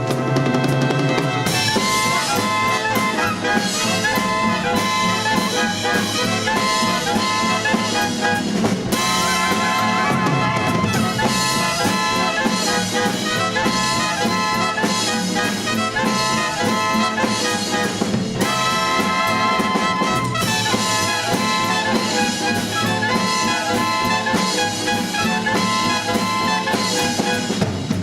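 A swing dance band playing an instrumental number live, with trumpets and trombones over a drum kit.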